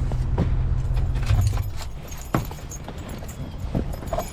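Van engine idling, then shut off about a second and a half in. Afterwards a few sharp clicks and keys jingling.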